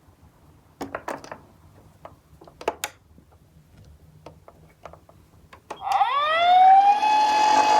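Light clicks and knocks of small toy cars being handled, then about six seconds in a toy ambulance's electronic siren starts: a wail that rises quickly in pitch and then holds steady.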